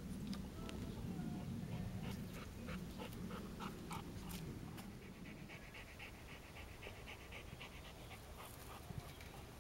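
Golden retriever panting in a quick, even rhythm, mouth open.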